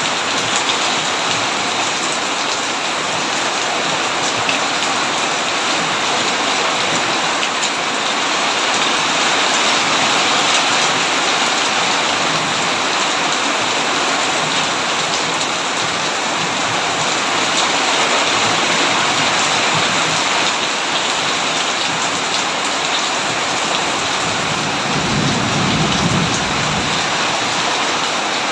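Heavy rain pouring steadily on a tin roof, a dense patter of drops. A low roll of thunder rumbles briefly near the end.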